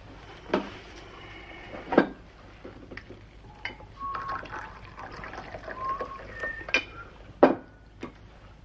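Liquid poured from a china pot into a cup, with about five sharp clinks and knocks of crockery being handled and set down, the loudest about two seconds in and again near the end.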